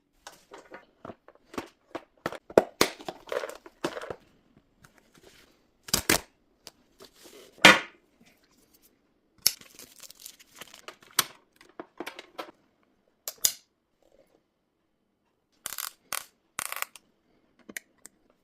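Unboxing a steam cleaner: plastic packaging crinkling and tearing, with irregular clicks and knocks of plastic parts being handled. Two louder knocks come about six and eight seconds in, and there is a short lull near the end.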